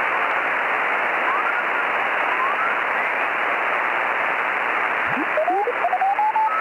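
Radio receiver static: a steady hiss, muffled above a certain pitch, with thin whistling tones gliding upward through it, like a shortwave receiver being tuned across the band. The steepest whistle rises sharply about five seconds in, and more rising whistles follow near the end.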